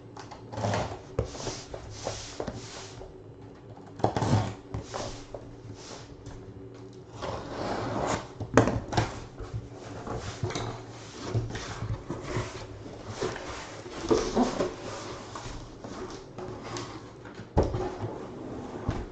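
A trading-card box being opened and handled: repeated rustling and scraping of cardboard packaging, with a sharp knock near the end.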